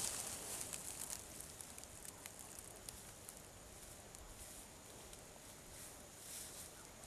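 Footsteps rustling through long grass, fading away within the first second, then faint open-air ambience with a few soft ticks.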